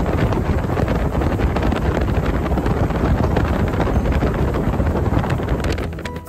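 Heavy wind noise buffeting the microphone of a boat under way, with the boat's motor running underneath; it fades out near the end.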